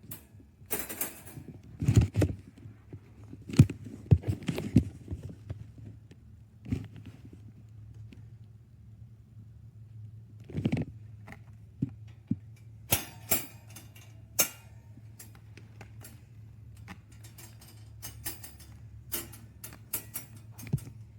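MidWest Life Stages folding wire dog crate rattling and clanking in irregular knocks and clinks, over a steady low hum.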